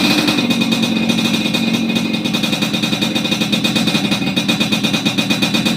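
Yamaha RX-King's 135 cc single-cylinder two-stroke engine running steadily at low revs through a custom stainless underbody 'cobra' exhaust, giving a deep growl with a crisp, jingling metallic rattle.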